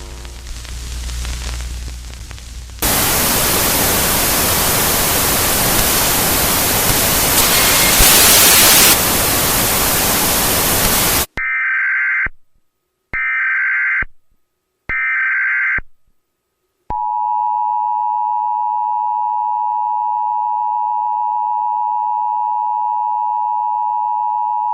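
Emergency Alert System test tones: a burst of loud static, then three short screeching data bursts of the EAS header about eleven seconds in, then the steady two-tone EAS attention signal held for about eight seconds.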